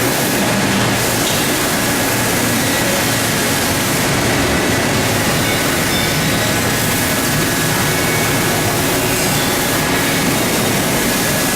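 Hydraulic ironworker running with its CNC table in operation: a steady, even mechanical hum and hiss with faint steady whining tones and no distinct punch strokes.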